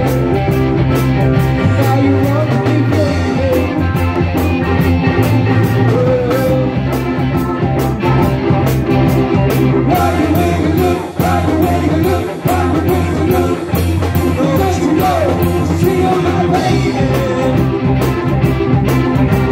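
Live band playing a blues-rock song on electric guitar, electronic keyboard and drum kit.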